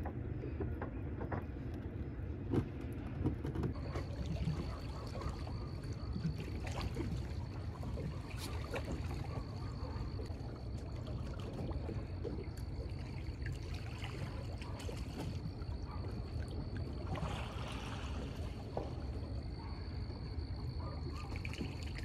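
Water lapping and moving against a small boat on a fast river current, with scattered small knocks. A thin, steady high whine joins about four seconds in.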